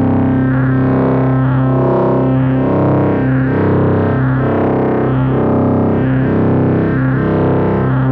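Software synthesizer patch from Arturia's V Collection with a distorted, guitar-like tone, playing a pulsing line of about two notes a second over sustained low notes, then cutting off abruptly at the end.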